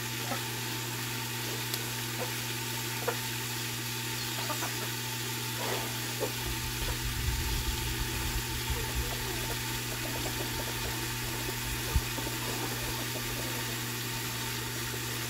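A steady low mechanical hum, like a motor or engine running, over a faint sizzle from meat searing in the pot. Small clicks come from a knife cutting a bell pepper, with a few soft knocks about halfway through and one sharper knock near the end.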